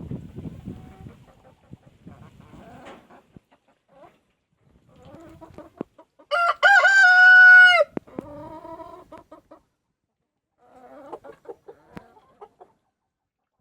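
Rooster crowing once, loud, for about a second and a half about halfway through, among hens clucking.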